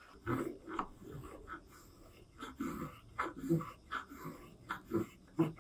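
Small metal spokeshave shaving the handle of a wooden rice scoop: about a dozen short scraping strokes as the blade lifts curls of wood, with a pause about two seconds in.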